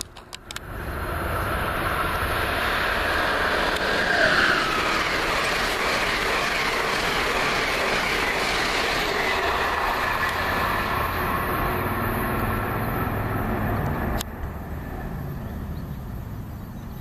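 Amtrak Regional passenger train, hauled by an ACS-64 electric locomotive, passing at speed: a steady rush of wheels on rail and air that builds about a second in and falls away suddenly about three-quarters of the way through. No horn is heard.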